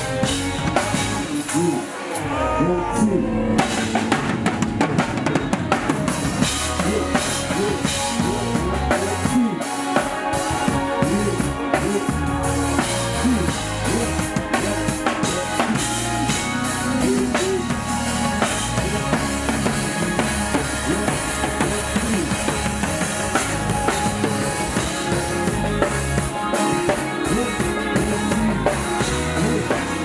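Live band playing, the drum kit loudest with steady kick, snare and cymbal strokes, over electric bass, electric guitar and keyboards.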